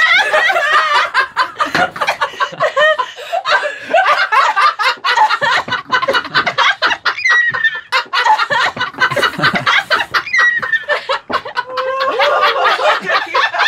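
A group of several people laughing loudly together, overlapping bouts of laughter throughout, with a few high falling squeals.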